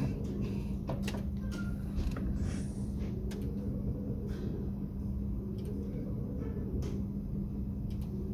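Video slot machine being played: a steady low hum with scattered short clicks and knocks as the reels spin and stop.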